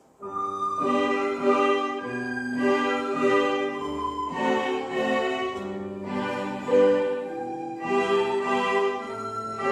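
An elementary school string orchestra playing, with violins over cello-range bass notes. It starts abruptly just after the beginning and moves through held chords that change every second or so.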